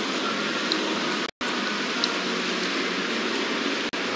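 Steady, even hiss of background room noise, broken by a moment of dead silence just over a second in and a short dropout near the end, where the recording cuts.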